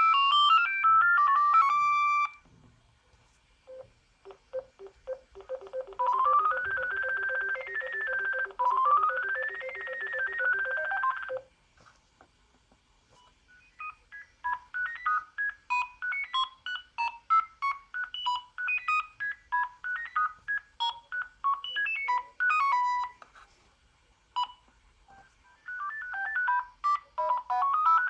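Sagem my101X mobile phone playing a series of electronic beeping ringtone melodies through its small speaker, one after another with short pauses between them. One tune has a pulsing low note under a melody that climbs and falls. The next is a quick run of short beeps.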